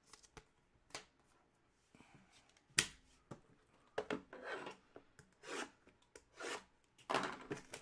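Trading cards being handled: short swishes of cards sliding against one another, with a few sharp flicks, one louder snap, and a denser rustle near the end.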